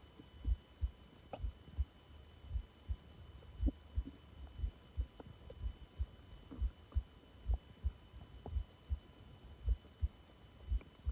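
Heartbeat heard through the belly, low thumps in pairs about once a second, with faint short stomach gurgles between them.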